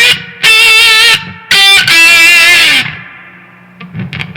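Electric guitar through a maxed-out fuzz pedal into a Marshall DSL 40C amp with the treble at full, with a noise gate pedal engaged: loud, heavily distorted sustained single notes with vibrato, the last one bending down in pitch. About three seconds in the notes die away and the background drops to a low hum, with a few short muted picks near the end.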